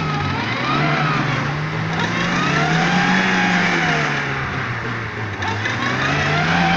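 Lada Niva (VAZ 2121) engine revving up and falling back several times as the stuck car spins its wheels in deep mud.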